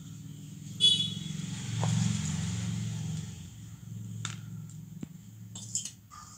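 A steel spoon clinks sharply with a short metallic ring about a second in, then scrapes and taps lightly as sweet filling is spooned into a plastic kozhukattai mould. Under it runs a low rumble that swells around two seconds in and slowly fades.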